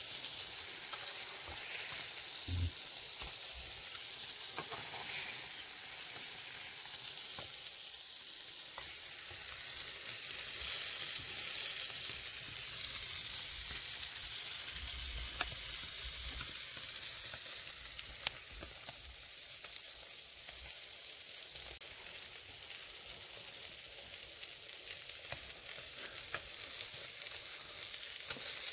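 Whole freshwater fish sizzling on a ridged metal grill grate over hot charcoal embers: a steady high hiss with scattered small crackles.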